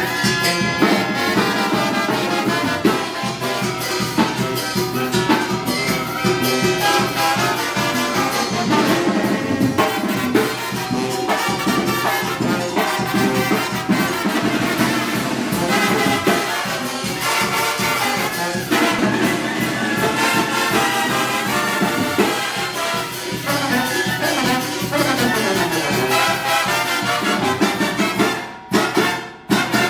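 Live Mexican brass band playing: trumpets, trombones and clarinets over a sousaphone bass line and drums. The sound drops out briefly twice near the end.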